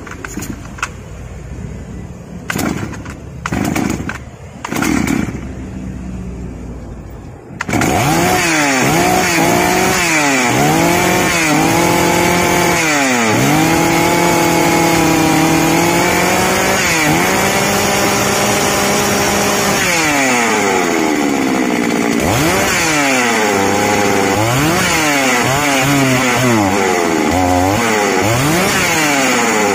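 A freshly rebuilt two-stroke chainsaw engine, with a new crankshaft and an aftermarket cylinder, is pull-started on its test run: a few short strokes of the starter cord, then it catches about seven and a half seconds in. It then runs loudly with its speed rising and falling repeatedly while it is tuned with a screwdriver.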